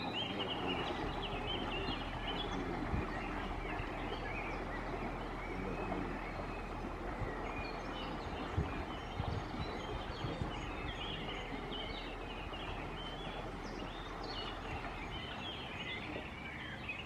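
Birds chirping and calling in short bursts over a steady low hum.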